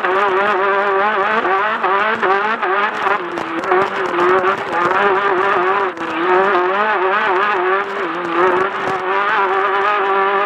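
Class 10 off-road race car engine running hard, its revs rising and falling quickly and constantly, with a brief dip about six seconds in.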